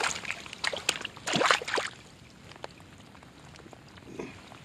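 A big crappie thrashing and splashing in shallow water at the bank's edge as it is landed: a few quick splashes and slaps in the first two seconds, then only faint water sounds.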